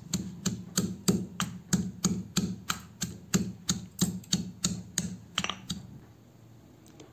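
Stone pestle pounding garlic, ginger and green chillies in a stone mortar: even knocks about three times a second that stop about six seconds in.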